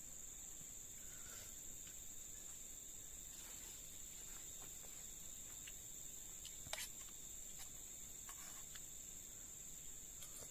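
Steady high-pitched drone of insects, crickets or similar, from the forest, with a few short sharp clicks scattered through it, the loudest about two-thirds of the way in.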